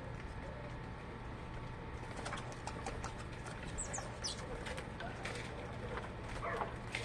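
Birds calling, with scattered short chirps and clicks starting about two seconds in, over a steady low hum.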